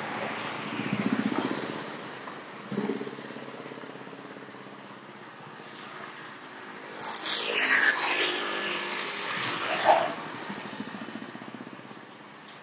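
Road traffic going past close by: motorcycle and small-truck engines passing one after another, with the loudest pass about seven to eight seconds in and a short sharp sound near ten seconds.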